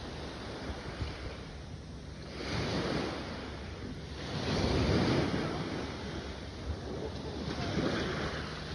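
Sea waves washing onto the shore in three rising and falling swells of rushing noise, over a steady low hum.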